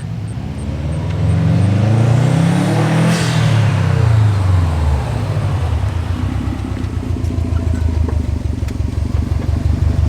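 Turbocharged 2.5-litre flat-four of a 2018 Subaru STI accelerating hard: the engine note climbs for about three seconds, a short hiss comes at the peak, then the revs fall away and the engine runs on steadily.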